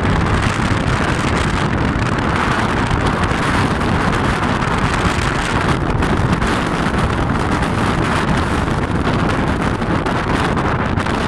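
Wind blowing across the microphone: a loud, steady rush with low rumbling buffets.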